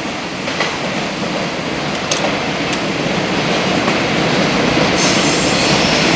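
Train noise on the rails: a freight container train rolls away, its wheels clicking over rail joints now and then, while an electric commuter train approaches. A hissing rush comes in about five seconds in.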